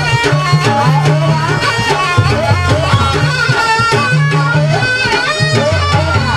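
Traditional Banyuwangi dance music: hand drums beating over a low sustained tone, with a high melody line that wavers and slides in pitch.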